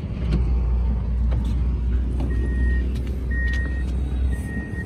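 Rear liftgate of a Hyundai Veracruz being opened: a few latch clicks over a low rumble, then three evenly spaced electronic beeps from the car, each about half a second long.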